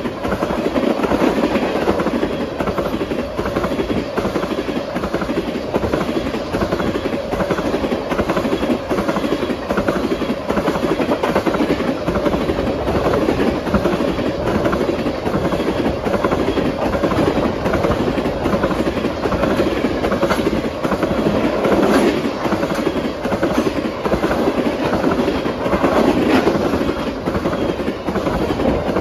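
Freight train rolling past close by: a steady rumble of cars with repeated wheel clicks over the rail joints.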